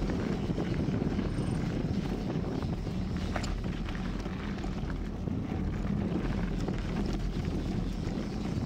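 Mountain bike rolling fast down a dirt trail: a steady low rumble of knobby tyres on dirt mixed with wind buffeting the action camera's microphone, with a few faint clicks and rattles from the bike.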